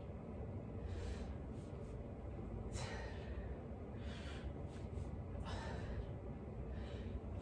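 A woman breathing hard through her mouth during a set of kettlebell goblet squats, with a sharp exhale about every one and a half seconds, roughly in time with the reps.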